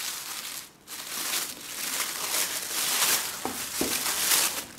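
Tissue paper crinkling and rustling as it is pulled open and unwrapped by hand, with a short lull about a second in. Two soft knocks come a little after three and a half seconds in.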